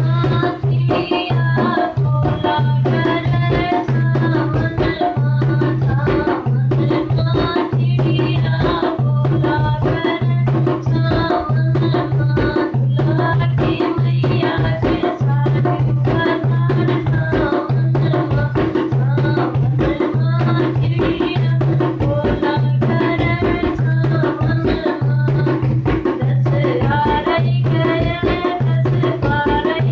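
North Indian folk song music for the monsoon season: a steady, repeating hand-drum rhythm of tabla or dholak under a running melody line.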